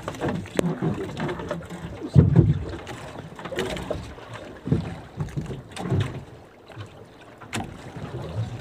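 Irregular dull thumps and knocks against a small wooden fishing boat, with some rustling, as a freshly caught skipjack tuna is handled and unhooked at the gunwale. The loudest thump comes about two seconds in.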